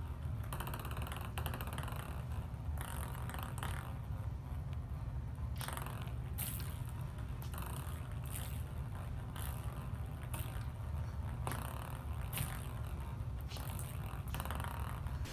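A cat batting a ping-pong ball on a table tennis table: irregular light taps and scrapes, about a dozen, over a steady low hum.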